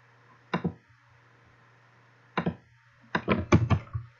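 A man's voice in short, low, mumbled bits, twice briefly and then more steadily near the end, over a steady low electrical hum from the recording setup.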